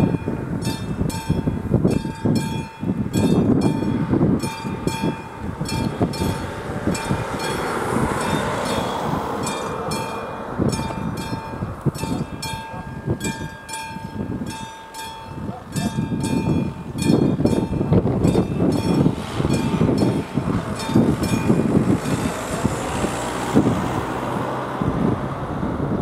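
Level-crossing warning bell of an AŽD 71 crossing ringing in an even rhythm, the sign that the crossing is closing for an approaching train. Under it, road vehicles rumble over the crossing, with wind on the microphone.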